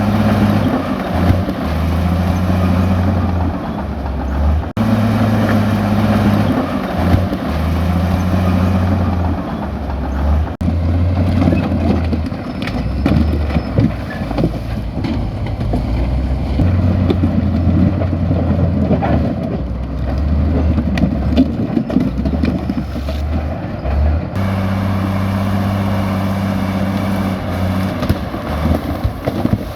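Komatsu bulldozer's diesel engine running under load, its low drone stepping up and down in pitch as the machine works, with scattered knocks through the middle. The sound changes abruptly three times, at cuts.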